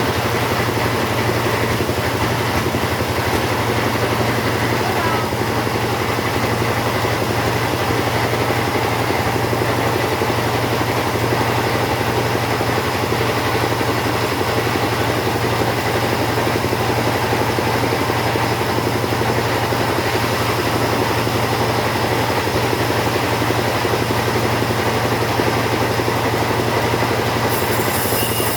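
Two-stroke chainsaw running steadily at high speed through a long cut in teak timber.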